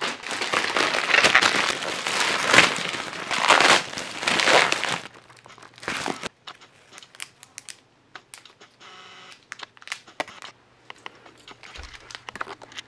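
Plastic and paper mailing packaging crinkling and rustling as a package is opened, loud and dense for about the first five seconds. After that come quieter, scattered rustles and small clicks as the contents are handled.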